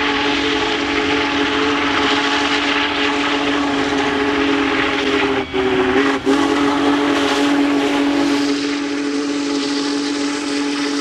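Union Pacific 4014 Big Boy steam locomotive's whistle blowing one long multi-tone chord, broken twice briefly about halfway through, over a steady hiss of steam.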